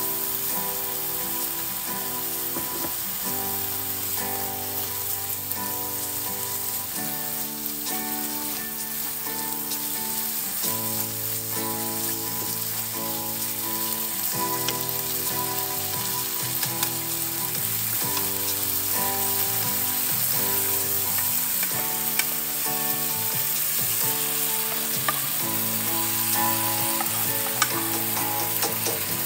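Food frying and sizzling in a pan with a steady hiss, stirred now and then with small utensil clicks. Slow background music with held notes plays underneath.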